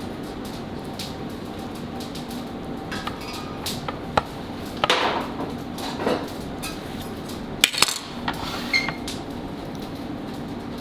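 Kitchen utensils and dishes clinking and knocking as food is plated, a few scattered sharp clicks and one brief ring, over a steady low hum.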